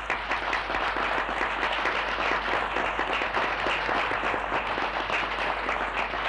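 Audience applauding: dense, steady clapping from a large crowd in a hall.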